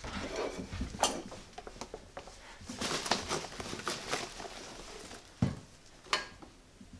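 Objects being handled and moved around on a cluttered table: scattered knocks and clicks, with crinkling of plastic bubble wrap about three to four seconds in. A sharper thump comes near the end.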